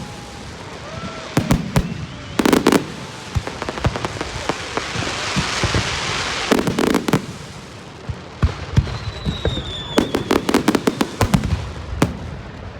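Fireworks going off in bursts of sharp bangs and crackling, with a rushing hiss in the middle and a whistle that slides down in pitch about nine seconds in.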